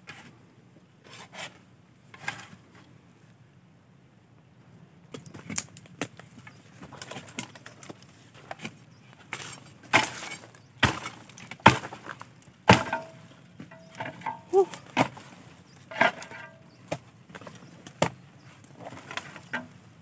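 A string of sharp knocks and cracks, like wood being struck or splitting. There are a few at first, then they come thick and irregular from about five seconds in, loudest around ten to thirteen seconds in.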